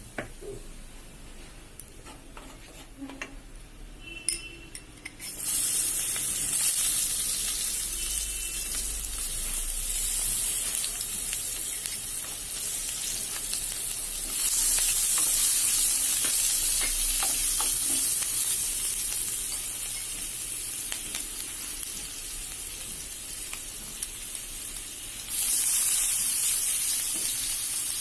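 Food sizzling in hot oil in a frying pan. The sizzle begins suddenly about five seconds in, after a few light utensil clicks, and turns abruptly louder twice more, around the middle and near the end.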